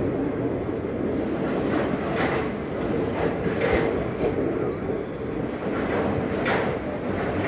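Punjab Mail passenger train rolling along the track on departure: a steady rumble of the coaches with a few sharper wheel clacks at irregular intervals.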